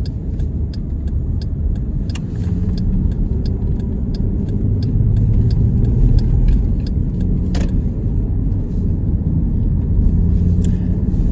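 Car cabin noise while driving: a steady low engine and road rumble. A turn signal ticks steadily for the first seven seconds or so.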